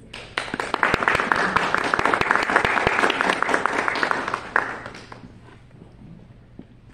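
A small audience applauding. The clapping starts right away, holds for about four seconds and dies away about five seconds in.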